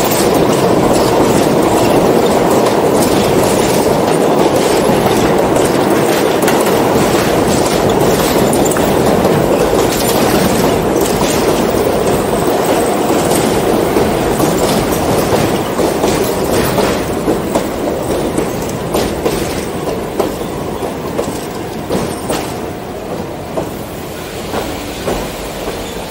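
New York City subway W train running on elevated track: a steady rumble with wheels clacking over the rail joints. Over the last ten seconds or so the rumble fades and the clacks thin out into separate clicks as the train slows toward the station.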